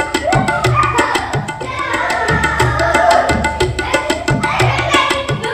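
Background music with a fast, steady drum beat and a melody over it.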